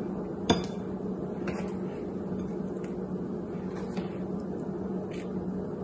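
Steady low hum with a sharp click about half a second in and a few fainter taps, from hands setting apple slices on spinach in a bowl.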